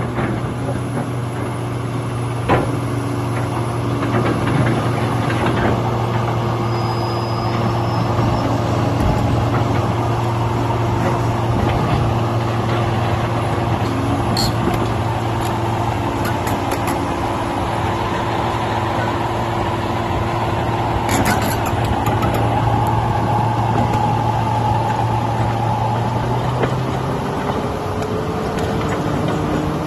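Komatsu PC450 crawler excavator's six-cylinder diesel engine running steadily as the machine moves on its tracks, with a few sharp metallic knocks; the engine note rises near the end.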